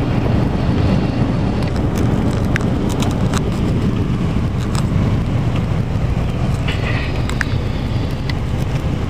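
Car driving slowly through a hail-covered street, heard inside the cabin: a steady low rumble of engine and tyres, with a few sharp ticks scattered throughout.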